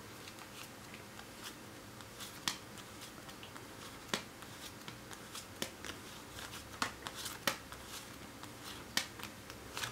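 Oracle cards dealt off the deck one at a time onto a cloth-covered table: a faint series of short, soft card clicks at irregular intervals as each card is counted down and laid on the pile.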